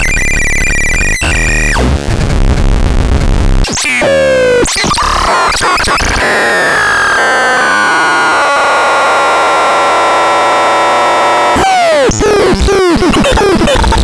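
Synthesizer making electronic tones and noise. A steady high tone gives way to a stretch of buzzing noise, then quick downward sweeps, a long tone slowly falling in pitch, and fast pitch sweeps near the end.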